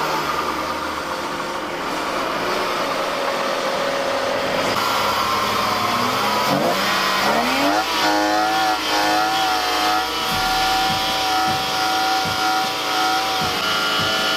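Car engine revving: its pitch climbs about six to seven seconds in, then holds high and steady.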